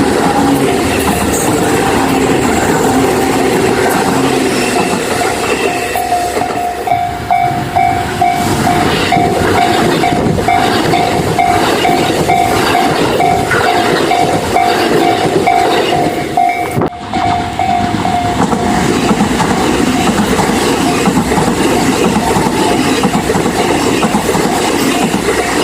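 A train running through a Japanese level crossing, its wheels clattering over the rails. From about six seconds in until about two-thirds of the way through, the crossing's electronic alarm rings as a rapid, evenly repeated ding.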